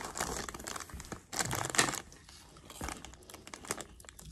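Plastic crisp packet of Tayto Meanies crinkling as a hand rummages inside it and handles it. The crinkling is loudest in the first two seconds, then drops to fainter, scattered crackles.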